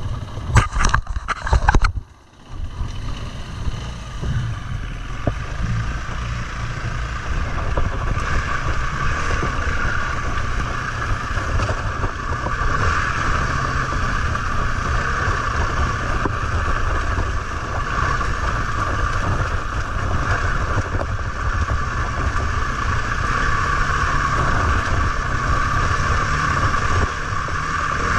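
KTM 350 EXC-F single-cylinder four-stroke enduro bike running and riding along a rough dirt track, with wind noise on the microphone as a steady low rumble. A few loud knocks come in the first two seconds.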